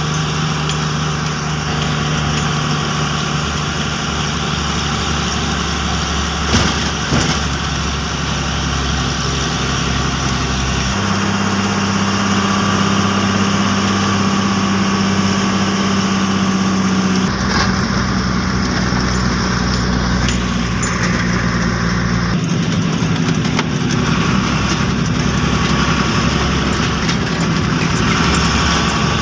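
Bedford truck engine running under way, heard from inside the cab. Its note steps to a new pitch about three times, with a couple of short knocks early on.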